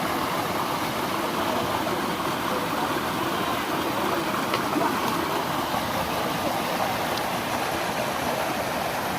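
Mountain stream water rushing steadily, an even unbroken wash of flowing water.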